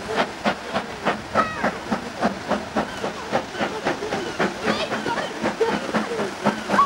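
BR Standard Class 4 2-6-4T steam locomotive's two-cylinder exhaust beating sharply and evenly, about four beats a second, as it pulls its train, with the hiss of steam.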